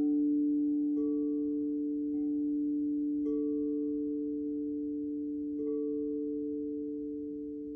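Crystal singing bowls ringing in two steady sustained tones, one low and one higher, with a bowl softly struck again about four times, every one to two seconds.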